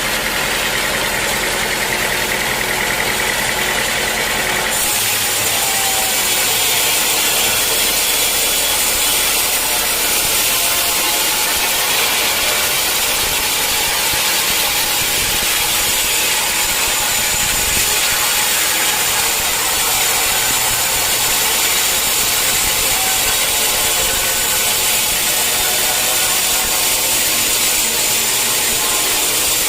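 Sawmill saw running with the machinery hum, then biting into a mahogany log about five seconds in and cutting steadily, a loud continuous hiss of the blade in the wood.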